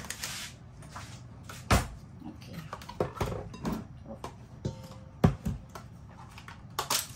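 Plastic soft-cheese tubs being handled and opened over a stainless steel mixing bowl on a kitchen counter: several sharp knocks and clatters, with smaller plastic rustles and taps in between.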